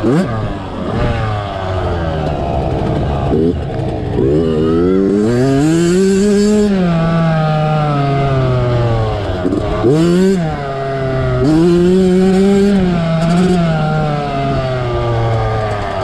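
Yamaha YZ65 single-cylinder two-stroke dirt bike engine, heard close up from the handlebars, revving up and down as the rider throttles on and off around the track. The pitch climbs and falls repeatedly, with quick dips between runs such as about ten seconds in.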